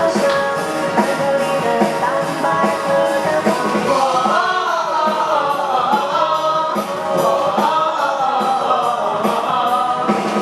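Singing of a Chinese pop song over instrumental accompaniment with a steady beat.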